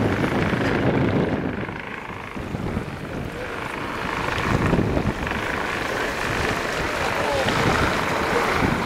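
Wind buffeting the microphone over the rush and splash of water along the hull of a sailboat under way.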